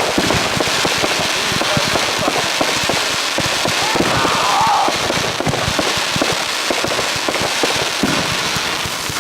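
Fireworks going off in a rapid, dense barrage of bangs and crackles.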